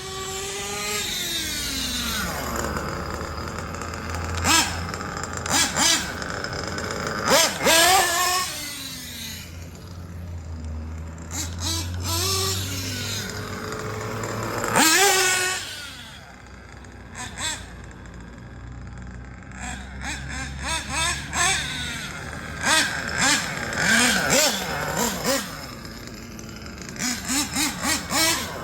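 Small two-stroke nitro engine of a Kyosho Inferno NEO ST 3.0 RC truggy revving as the car drives, its pitch sweeping up and down as it speeds up, slows and passes. It quietens for a few seconds about midway, then comes back in quick repeated throttle blips near the end.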